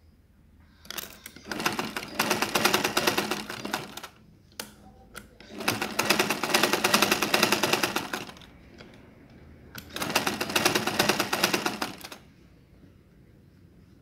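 Black domestic sewing machine running in three bursts of rapid stitching, each a few seconds long, with short pauses and a few light clicks between them.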